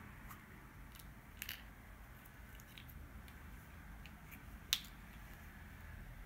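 Faint clicks and taps of small plastic toy pieces being handled by fingers. There is a small cluster of clicks about a second and a half in and one sharper, louder click about a second and a half before the end.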